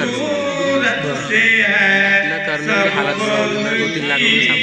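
Male voice chanting a naat, a devotional song in praise of the Prophet, with long held, wavering notes.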